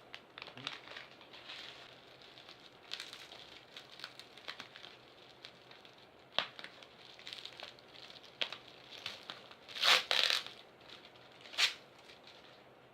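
Packaging being handled and unwrapped: crinkling and tearing of wrapping material, with scattered rustles and two louder crackling bursts about ten seconds in and again a little later.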